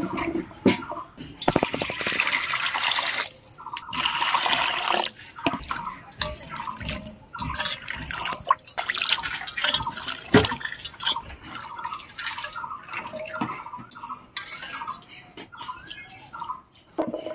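Water splashing and sloshing in a steel bowl as Malabar spinach seed clusters (pui metuli) are rubbed and squeezed by hand, with water dripping off them as they are lifted out.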